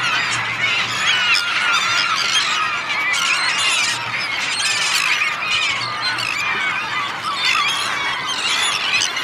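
A large mixed flock of feeding gulls, mostly herring gulls with black-backed gulls among them, all calling at once. Many overlapping rising and falling cries run together into one unbroken din.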